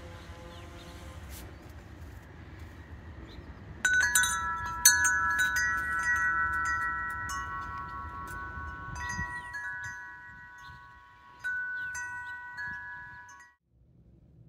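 A metal-tube memorial wind chime ringing as it swings. About four seconds in, several tubes are struck at once, and more strikes follow for the next several seconds. The clear, long-ringing tones overlap and fade out shortly before the end, over a low rumble in the first part.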